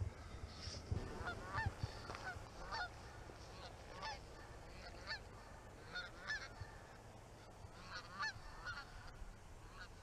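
A flock of geese flying over, honking over and over, with a call every second or so and some calls overlapping.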